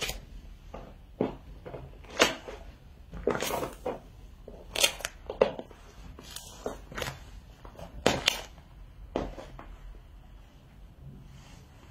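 Stiletto pumps stepping on and squashing a soft white ball on a laminate floor: an uneven run of sharp heel taps and short squashing noises, with a longer press a little past three seconds in. The treading stops after about nine seconds.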